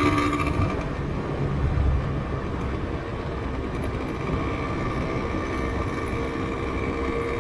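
Yamaha RZV500R's two-stroke V4 engine running on the road. Its note eases off about a second in and builds again near the end.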